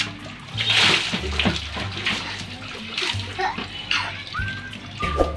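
Water poured from small mugs over children's heads, splashing into metal wash basins several times, the loudest pour about a second in. Background music with a steady bass runs underneath.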